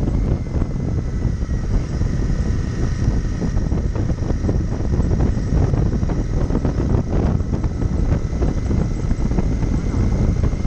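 Motorcycle engine running at a steady cruise, heard from on board the moving bike, with wind and road noise mixed in.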